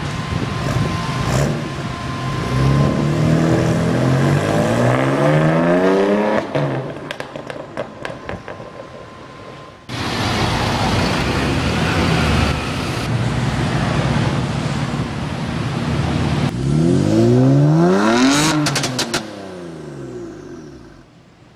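BMW M3 F80's twin-turbo straight-six breathing through an Akrapovic exhaust, revved up hard and let off twice, with a burst of loud crackles and pops from the exhaust each time the throttle closes.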